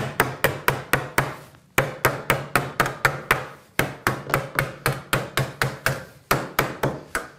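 Metalworker's hammer striking along the fold of a thin metal sheet clamped between wooden blocks, flattening the hand-made bend into a sharp angle. The blows come fast and even, about five a second, in runs broken by three short pauses.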